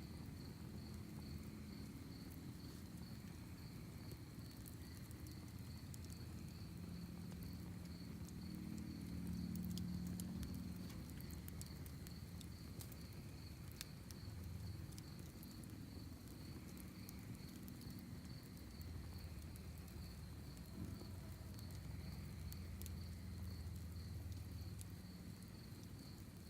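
Crickets chirping in a steady, fast pulsing trill, with sparse crackles and pops from a wood fire burning in a fire pit over a low rumble.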